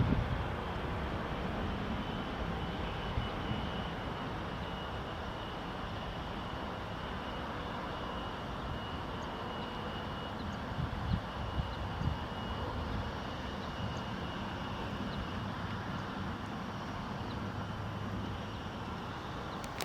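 Airbus A320-family jet airliner's engines during takeoff: a steady rush of engine and air noise with a faint high whine, easing off slightly over time.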